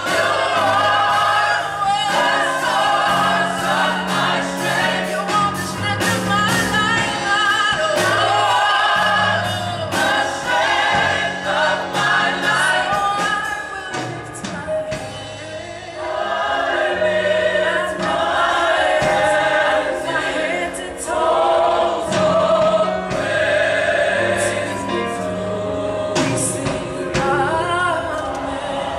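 Gospel choir singing in full harmony behind a female soloist on a microphone, accompanied by keyboard with a held bass line and a drum kit with cymbals. The music softens briefly about halfway through, then swells again.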